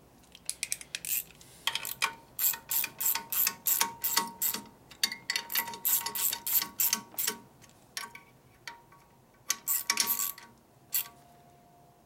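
Small hand socket ratchet clicking in runs as it turns screws into the air cleaner backing plate of a Harley-Davidson panhead: a long run of quick clicks a couple of seconds in, and a shorter run near the end.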